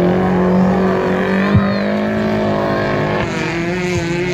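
A motor vehicle's engine running loud and steady at an even pitch, its pitch wavering a little about three seconds in.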